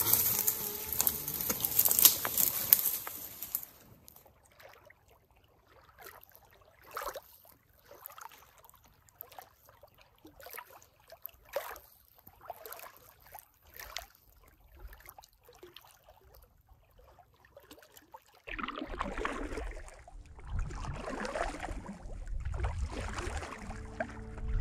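A short rustling hiss at the start, then faint small waves lapping and clicking on a pebbly lakeshore. Near the end, a stand-up paddleboard paddle swishes through the water, about one stroke every two seconds.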